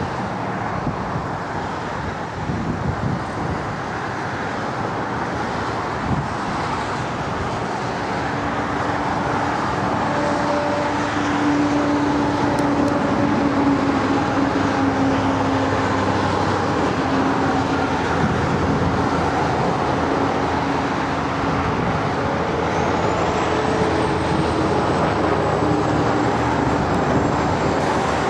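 Canadair CL-415 water bomber's twin turboprop engines and propellers in flight, a steady hum that grows louder about a third of the way through as the plane heads toward the listener.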